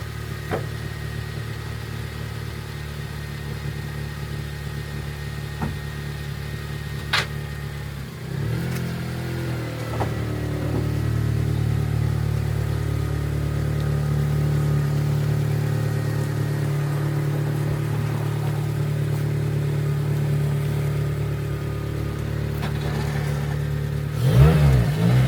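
Honda K-series four-cylinder car engine running at low speed as the car is eased forward. The engine note steps up and gets louder about eight seconds in, and there is a quick rev near the end. There is a single sharp click about seven seconds in.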